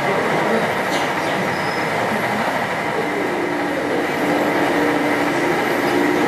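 HO-scale model train running on its track, a steady rolling rattle of small wheels with a faint whine that grows clearer about three seconds in.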